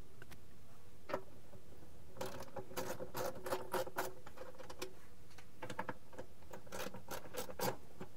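Socket ratchet clicking in quick runs as it backs nuts off a stainless steel slow cooker base: one click about a second in, a longer run of clicks from about two seconds in, and another run near the end.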